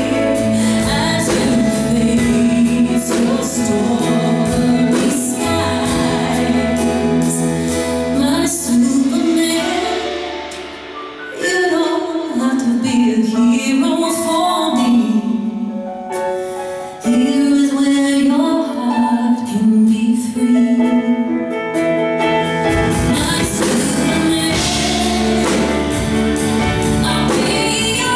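A woman singing live with a small band of piano, electric bass, electric guitar and drum kit. About ten seconds in, the bass and drums fall away and her voice carries on over sparse accompaniment. The full band with drums comes back in a little past twenty seconds.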